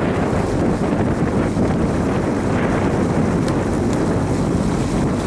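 Steady wind buffeting the camera microphone, a continuous low rumble with no break.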